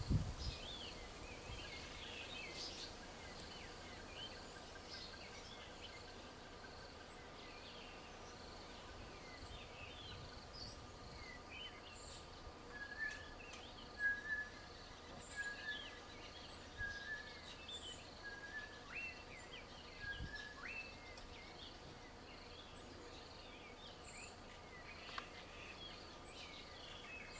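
Faint daytime bushveld birdsong: several birds calling with short chirps and whistles, one repeating a clear note about once a second for several seconds in the middle, over a faint steady high insect buzz.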